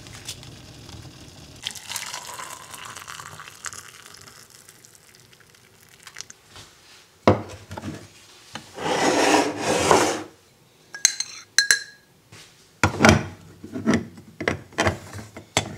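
Aluminium parts of a Bialetti Moka Express stovetop coffee pot being handled and assembled: a loud stretch of rubbing and scraping, then a few short ringing metal clinks and several knocks near the end.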